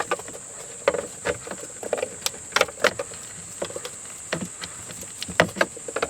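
Plastic wiring-harness connectors being handled and pushed into a remote-start module: irregular sharp clicks and knocks, over a faint steady high whine.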